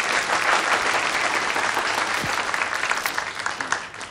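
A crowd of people applauding, thinning out and dying away near the end.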